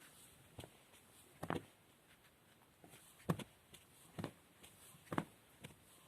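About six short, sharp pops spread over several seconds, the loudest about three and five seconds in, from a man's upper back (thoracic spine) joints cracking as he self-adjusts.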